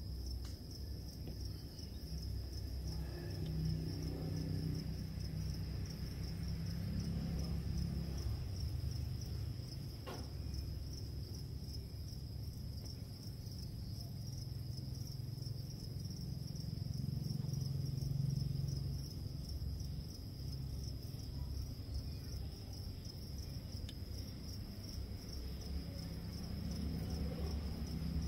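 A steady high-pitched trill that never lets up, over a low hum.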